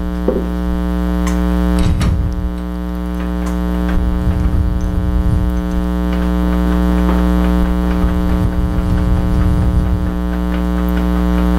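Steady electrical hum with a stack of overtones, with a few light clicks and knocks of tool handling over it; part of the hum drops out near the end.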